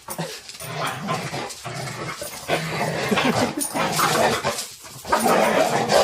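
Two dogs play-fighting, making continuous vicious-sounding growls and snarls, louder from about halfway in.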